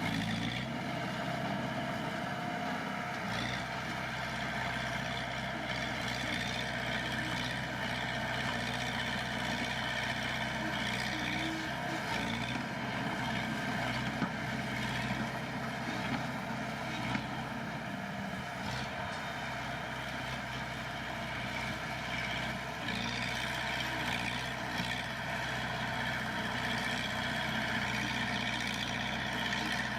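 Heavy earthmoving machine's diesel engine running steadily, with two sharp knocks near the middle.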